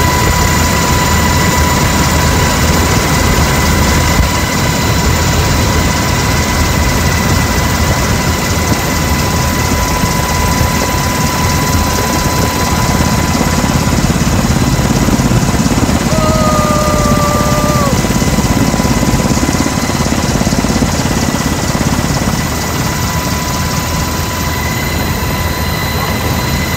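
Military helicopter in flight, heard from inside the cabin with the side door open: steady rotor and engine noise with rushing air and a steady high whine.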